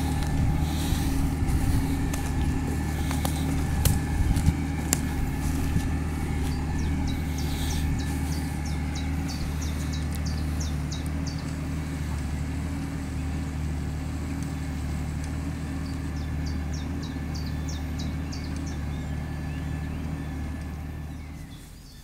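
Massey Ferguson 6465 tractor's diesel engine running steadily under load while pulling a plough, fading a little near the end.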